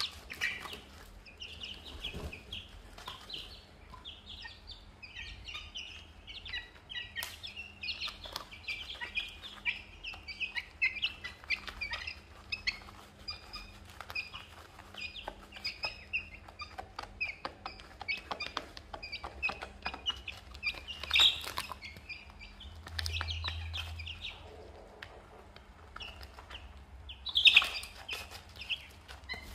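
A brood of young chicks and ducklings peeping, a steady stream of short high peeps, with scattered clicks of beaks pecking feed from a plastic tray. Two louder sharp sounds stand out, one about two-thirds of the way in and one near the end.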